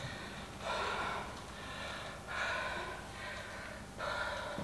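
A woman breathing hard during a leg workout: three long, forceful breaths about a second and a half apart.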